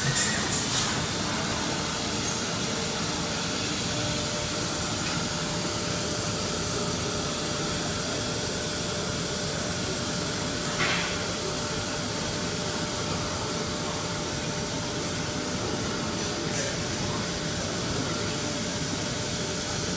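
Hurco VM1 CNC vertical machining centre running a program in automatic: a steady hiss with a faint hum underneath, and a brief knock just under 11 seconds in.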